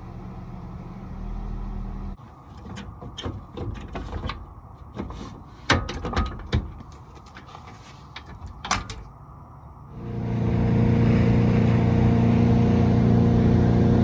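Sharp metal clicks and clanks as a boat trailer's coupler and safety chains are hooked to a vehicle's hitch. About ten seconds in, a boat's engine starts to be heard running steadily at speed, with the wash of water. The engine is the loudest sound.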